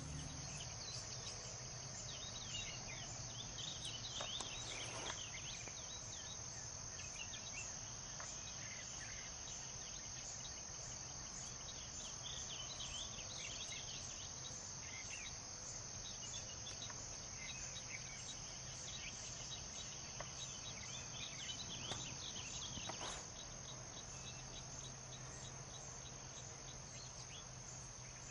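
Crickets chirping steadily in faint night-time ambience, over a low steady hum.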